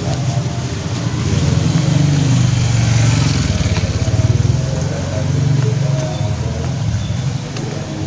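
A small motorbike engine passing close by, swelling up about two seconds in, loudest in the middle and fading near the end.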